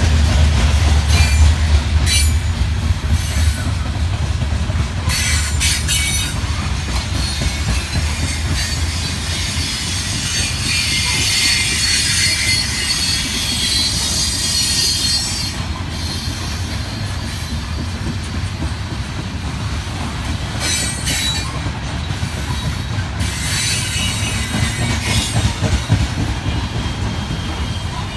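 Coal train's hopper cars rolling past on the rails: a continuous rumble of steel wheels on track, with high wheel squeal swelling around the middle and scattered clicks over rail joints. A low locomotive engine drone fades away over the first few seconds.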